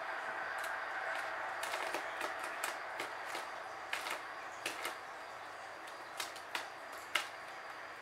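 A young bird pecking at an insect on a hard desk, its beak striking the surface in a string of sharp, irregular taps, about fifteen in all, the loudest near the end.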